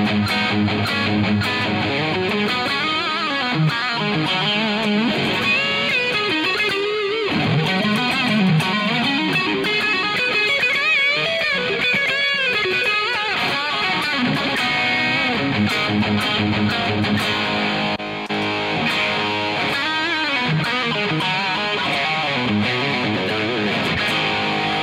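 Distorted electric guitar played through a Zoom G1 Four pedal on a Marshall JCM800-style amp simulation. Held chords give way to lead lines with string bends and vibrato.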